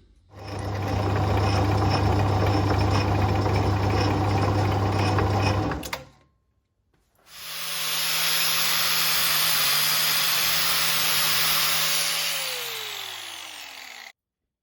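Metal lathe running steadily in two separate stretches with a short silence between. In the second stretch the motor is switched off and winds down, its pitch falling for the last two seconds before the sound cuts off.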